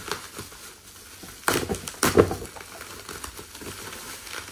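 Black plastic parcel wrapping being torn and crinkled by hand, with two louder rips about a second and a half and two seconds in.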